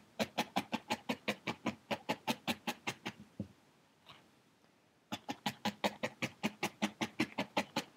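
A barbed felting needle stabbing quickly and repeatedly through wool into a foam felting pad, about seven stabs a second. The stabbing stops for about two seconds in the middle while the wool is lifted and reshaped, then picks up again at the same pace.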